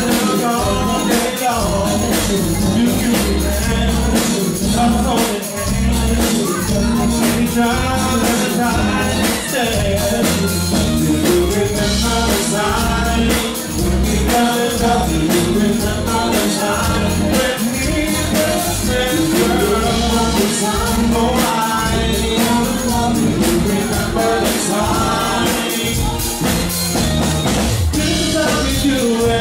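Live band playing an 80s dance number, with lead vocals sung into a microphone over drum kit, bass, keyboard and congas. A steady dance beat runs throughout.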